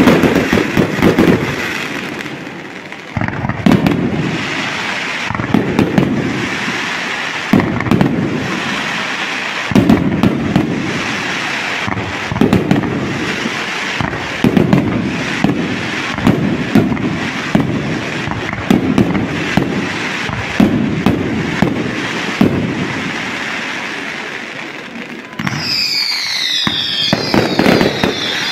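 Aerial fireworks display: shells burst about every one to two seconds, each a deep boom followed by crackling. Near the end a few whistling fireworks sound, their whistles falling in pitch.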